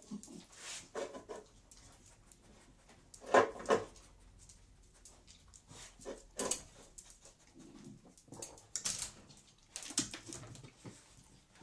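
Two beagles sniffing and snuffling, with scattered short noises and two louder bursts close together about three and a half seconds in.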